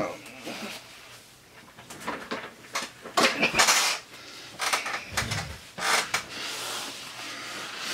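Plastic containers and utensils clattering as they are handled and set down on a table, with a series of short knocks and rustles and a paper towel rustling near the end.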